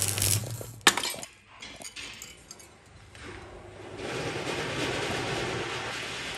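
Stick arc welding on steel pipe: a crackling arc with a low electrical hum, cutting off about half a second in. A sharp metallic clink follows about a second in, then a few lighter metal clinks, and a steady noise comes up about four seconds in.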